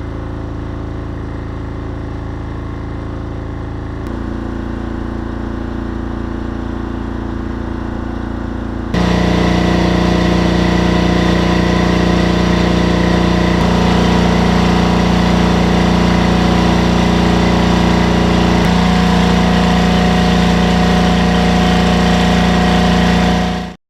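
Generator engine running steadily, stepping abruptly to a new pitch and loudness several times as the electrical load on it is raised, and markedly louder from about nine seconds in. It cuts off suddenly near the end.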